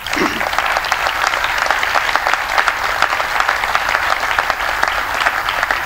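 Audience applauding: dense, even clapping from many hands.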